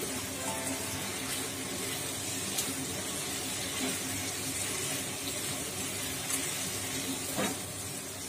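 Sweet soy sauce simmering and sizzling steadily in a wok around pieces of fried hairtail fish as they are stirred with a spatula. There is a single short knock near the end.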